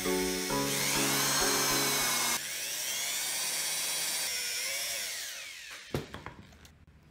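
Electric hand drill boring through a small plywood block, its motor whine rising and falling in pitch, with background music that stops about two seconds in. A few sharp knocks near the end.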